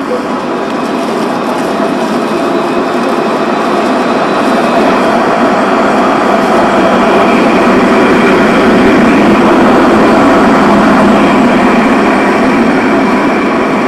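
Tram running on street rails, a steady rolling rumble of wheels on track that grows louder over the first half as it draws near and holds close.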